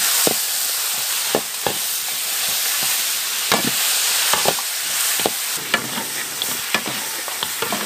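Chicken pieces sizzling in hot oil in a large iron wok while a metal wok spatula stirs and scrapes them, with irregular clicks and knocks of the spatula against the pan.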